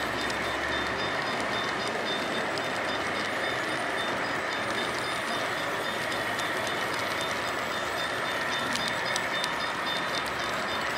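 Model freight train cars rolling steadily along the track, a continuous rolling noise with a few light clicks near the end and a faint repeating high tone.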